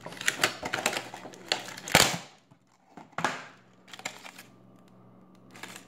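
Cardboard and plastic packaging being handled: quick crinkling and clicking for about two seconds, a louder crackle about two seconds in, and another short rustle a second later.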